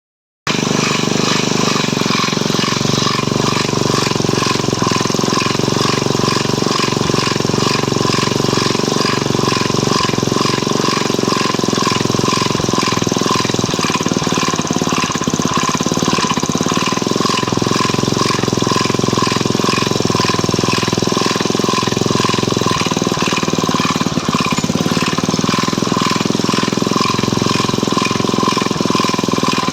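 Stels Kapitan snowmobile engine running steadily at idle with its variator and overrunning clutch removed, with a regular knock in the running. The knock persists even with these parts off, so it does not come from the variator or the overrunning clutch.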